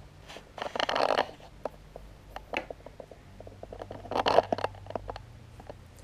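Rustling and scratching: two louder bursts, one about a second in and one about four seconds in, with scattered small clicks and scratches between them.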